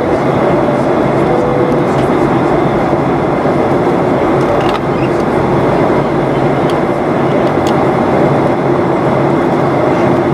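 Steady cabin noise of a Boeing 737-800 in flight: its CFM56-7B turbofan engines and the air rushing past the fuselage make a constant loud noise with a few steady hum tones.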